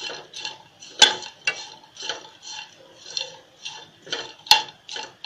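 A spatula stirring and scraping slices of dried coconut being roasted in a non-stick kadhai, about two strokes a second, with two sharp knocks of the spatula on the pan, the loudest sounds, about a second in and near the end.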